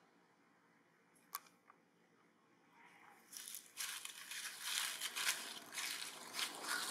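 A sharp click about a second and a half in, then from about three seconds in a loud, irregular rustling that goes on to the end.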